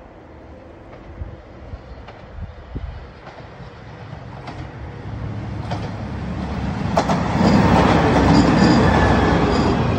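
A JR Shikoku 2700 series diesel express railcar approaches and passes close by. Its engine and wheel noise grows steadily louder and is loudest from about seven to nine and a half seconds in. Sharp clicks of the wheels over the rail joints come through the noise.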